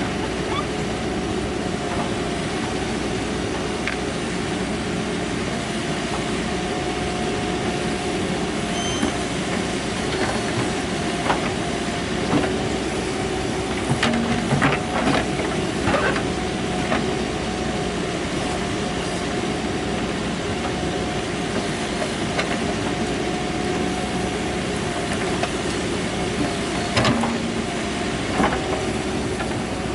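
Mahindra SX90 backhoe loader's diesel engine running steadily under work, with a steady whine over the engine and a few sharp knocks around the middle and again near the end.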